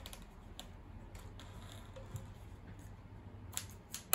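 Faint, scattered clicks and light handling noises at a sewing machine, irregular rather than the steady run of stitching, over a low steady hum.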